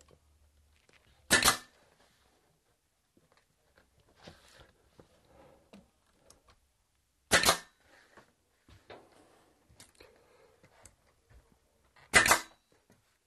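Pneumatic finish nailer firing three times, roughly five seconds apart, each a sharp short pop as it drives a nail into wooden door trim molding, with faint handling noises between shots.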